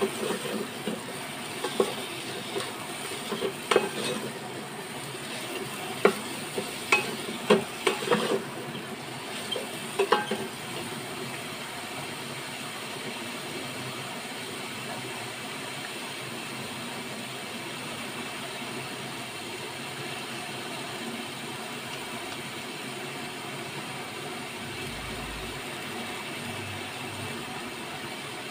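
Wooden spatula knocking and scraping in the metal pot of an electric rice cooker as sliced okra and onions are stirred in hot oil, over a steady sizzle. The stirring stops about ten seconds in, leaving only the sizzle.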